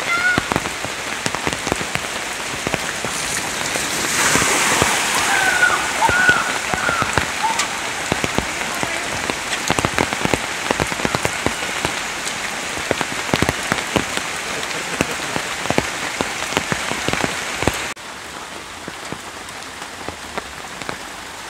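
Steady rain, with heavy drops striking an umbrella overhead as many sharp separate taps. The sound drops suddenly in level near the end.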